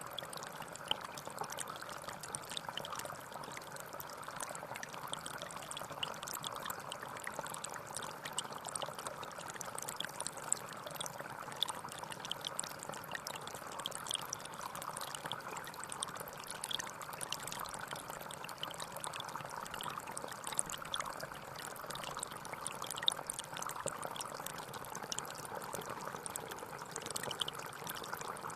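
Water pouring and trickling steadily into a fish pot, with many small splashes and drips.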